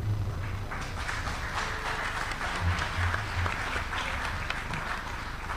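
Audience applauding: a dense spell of many hands clapping that begins about half a second in.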